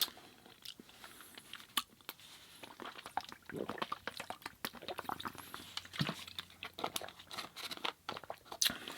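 Close-miked chewing and wet mouth clicks of a person eating, with soft crunches, in a small room.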